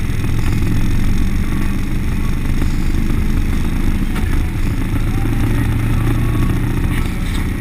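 Turbocharged LT1 V8 street truck cruising at a steady speed, its low exhaust drone heard from inside the cab and holding an even pitch and level.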